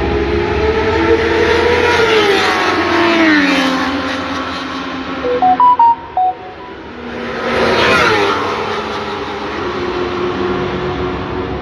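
Racing motorcycle engines passing at speed, twice: about two seconds in and again about eight seconds in, the engine note dropping as each goes by. Between the two passes comes a short run of electronic beeps at differing pitches.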